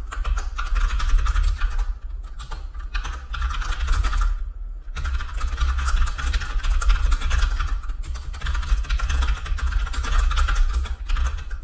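Rapid typing on a computer keyboard: a dense run of key clicks with short pauses about two seconds in and again near the five-second mark, over a low rumble.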